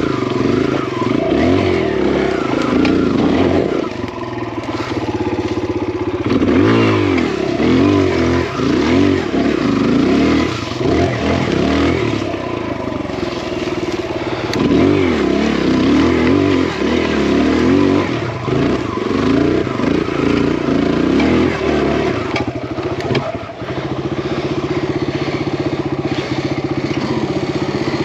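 Big-bore Kawasaki KLX single-cylinder four-stroke dirt bike (170 cc kit, BBR exhaust) running under the rider, its revs rising and falling over and over as the throttle is worked over rough trail. Over the last few seconds it settles to a steadier, even note.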